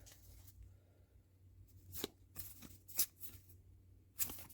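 Trading cards from a freshly opened booster pack being handled and slid past one another: a few faint, short flicks and rustles, about five in all, the sharpest about three seconds in.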